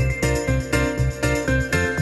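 Background music: an upbeat tune with a steady beat, about four plucked or bell-like notes a second.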